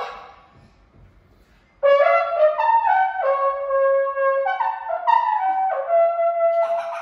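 Trumpet playing a short, quick melody of about a dozen notes that step up and down, starting about two seconds in and stopping just before the end.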